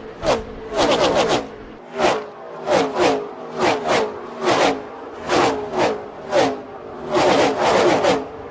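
NASCAR Gen 6 V8 stock cars passing a trackside camera one after another, about a dozen in quick succession. Each engine note drops in pitch as the car goes by, and some cars come through in tight bunches.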